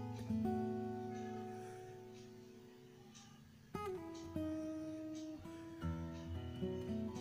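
Background music on acoustic guitar: held plucked notes ring and slowly fade, then a new chord strikes in a little past the middle and the picking carries on.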